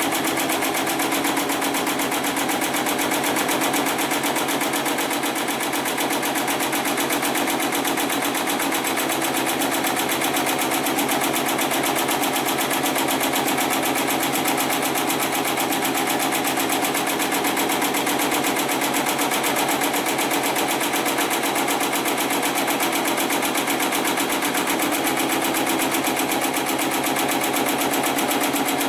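Heavy-duty programmable pattern sewing machine with a 750 W motor, running steadily and stitching continuously with a fast, even rhythm.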